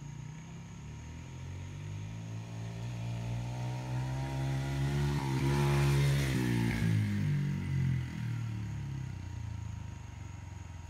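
Small youth dirt bike's engine riding past close by. It grows steadily louder, drops in pitch as it passes about six seconds in, then fades as it moves away.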